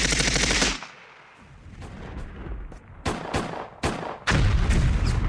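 A lovebird pecking at a laptop's keyboard keys, a rapid clatter of sharp plastic taps. A fast run of taps at the start, a few single taps in the middle, and another fast run near the end.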